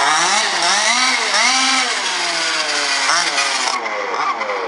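MCD Evo3 Ultimate RC buggy's 30.5cc two-stroke reed-valve engine revving up and down several times as the car drives. The engine is running rich, with far too much fuel in the mixture.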